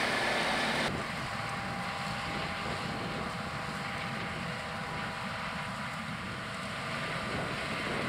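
A grain semi-truck makes a hissing noise at the elevator, cut off abruptly about a second in. After that, a John Deere combine runs steadily while harvesting standing corn, a constant machine hum with faint held tones.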